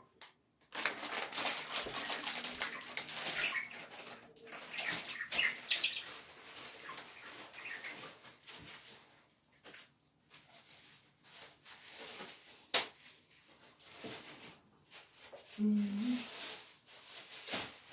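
Crinkling and rustling of a plastic packet of dry millet being handled and bagged, with scattered small knocks and a sharp click about thirteen seconds in.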